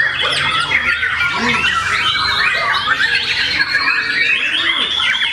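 White-rumped shama (murai batu) singing a continuous, rapid stream of varied whistles and chattering phrases, overlapped by other caged songbirds singing at the same time.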